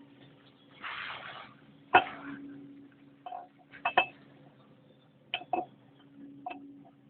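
Sharp metal knocks and clinks, about five in a few seconds, from tools and parts being handled while an excavator's hydraulic drive motor is taken apart, with a noisy rustle about a second in and a steady low hum underneath.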